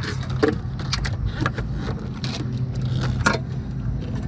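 Hands working a wiring harness in corrugated plastic loom behind a car's front support: a string of irregular small clicks and rattles, the loudest about three seconds in, over a steady low hum.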